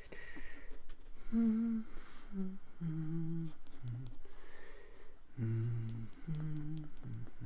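A man humming a slow tune, in low held notes: one short phrase, a pause, then a second phrase.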